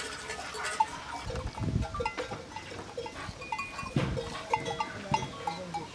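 Sheep in a pen: small bells clink now and then, with a couple of dull thumps as the animals shift about.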